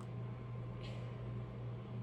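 Steady low hum throughout, with one brief faint crinkle of a plastic bag being handled and pressed closed about a second in.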